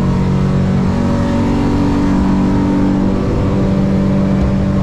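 Yamaha outboard engine running hard at cruising-to-top speed, heard from inside the boat's cabin, its pitch creeping up as the boat accelerates from about 36 to 43 mph.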